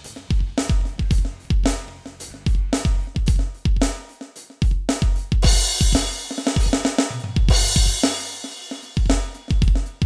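Avatar SD102-3 electronic drum kit's sampled drum sounds played as a groove: kick, snare and hi-hat, broken briefly about four seconds in, with crash cymbal hits about five and a half and seven and a half seconds in.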